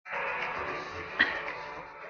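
Background music, with a single sharp click a little past halfway.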